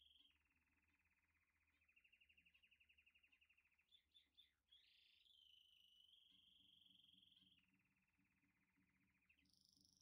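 Faint chorus of high-pitched animal calls: long steady trills alternating with rapidly pulsing trills, and a few quick chirps about four to five seconds in. A low pulsing sound joins after about six seconds.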